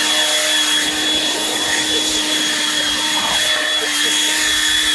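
Handheld leaf blower running steadily, a high whine over the rush of air.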